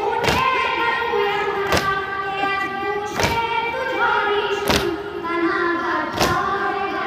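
A boy's voice recites a noha, a sung Shia lament, through a microphone, while the crowd of mourners beats their chests (matam) in unison. Each beat lands as one heavy thump, five in all, about every second and a half, keeping the rhythm of the lament.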